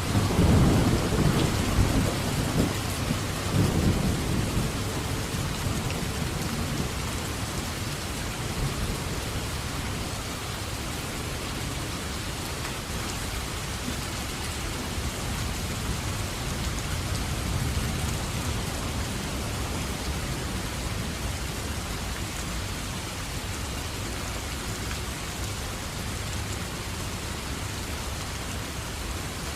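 Thunderstorm: a loud roll of thunder rumbling through the first few seconds and fading, over steady heavy rain that keeps on after it.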